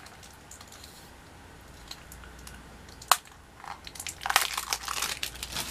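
A small plastic toy pet-carrier blind box being opened: one sharp plastic click about three seconds in, then crinkling and rustling of plastic packaging.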